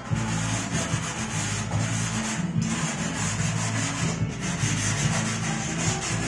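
Hard pastel stick scratching back and forth across sanded UART pastel paper in quick strokes, with brief breaks about two and a half and four seconds in.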